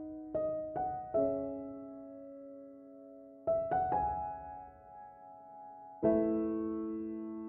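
Slow background piano music: a few notes struck in quick succession, each left to ring and fade, then a chord struck near the end.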